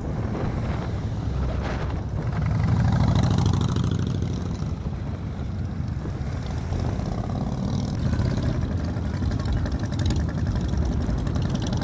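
Harley-Davidson V-twin motorcycle engines running. One swells louder about two and a half seconds in and eases off again about two seconds later.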